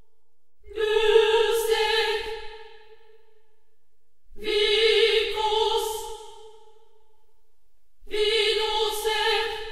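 Music: voices singing long held notes in a choral or operatic style, in three phrases of about two seconds each with quiet pauses between them.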